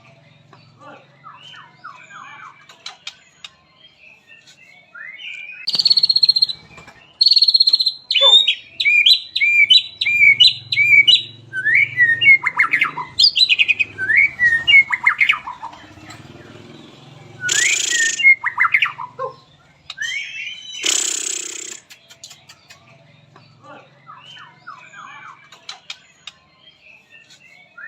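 White-rumped shama (murai batu) singing: loud whistled phrases that slide up and down, with a run of quick repeated notes about a third of the way in. Several short harsh rasping bursts cut in, once early and twice in the second half.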